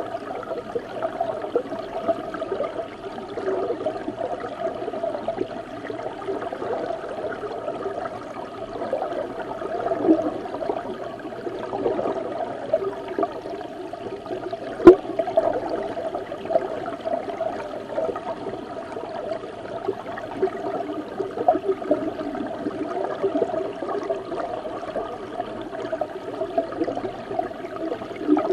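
Flowing river water heard from underwater: a steady, low bubbling and gurgling rush. A single sharp click cuts through about halfway.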